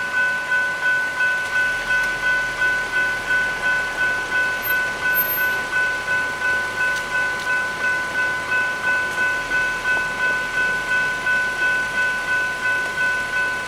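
General Signals Type 3 electronic level-crossing bell ringing in a fast, even series of dings, about three a second, each a chord of several fixed tones. It is the crossing's warning signal while the booms are down for an approaching train.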